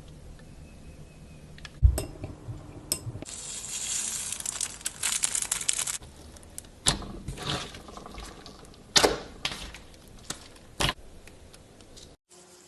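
A series of sharp knocks and clatters, with a few seconds of loud hissing noise in the middle.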